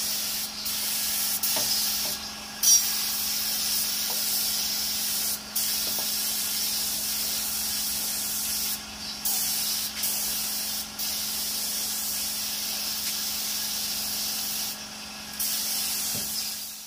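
Gravity-feed air spray gun hissing steadily as it sprays clear coat, cutting out briefly several times as the trigger is let off. A steady low hum runs underneath.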